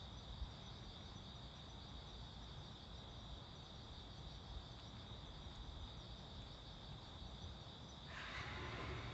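Faint, steady chorus of night crickets, a continuous high trill. Near the end a broad rushing noise swells in, an approaching vehicle.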